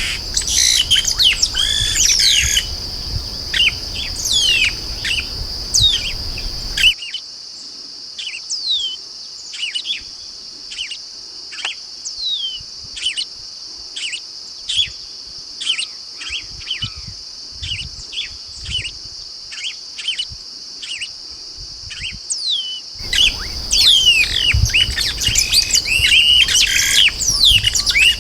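Chupim-do-brejo blackbirds calling in a dense chorus of chirps and short downward-sliding whistles over a steady high hiss. From about seven seconds in, the chorus thins to separate descending chirps, roughly two a second, then turns dense again for the last few seconds.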